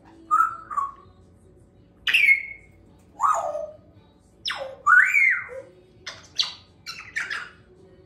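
Pet parrot calling: a string of loud squawks and whistled calls, several sliding down in pitch, then a quick run of short calls near the end.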